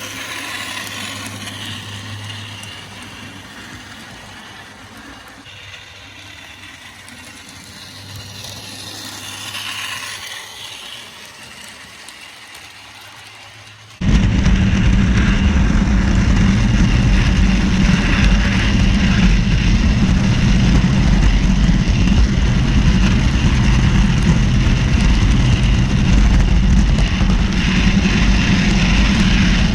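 HO-scale model diesel locomotive running on track, its motor and gear drive humming and swelling twice as it passes close by. About halfway through, this gives way suddenly to a much louder, steady, diesel-like engine running sound.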